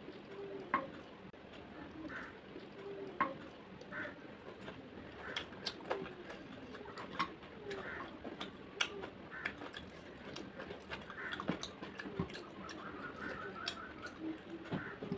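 Mouth sounds of eating rice and curry by hand: irregular wet clicks and smacks of chewing.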